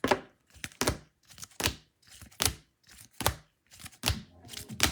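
Trading cards being handled and set down one after another on a table: a sharp tap a little less than once a second, with softer rustles and clicks between.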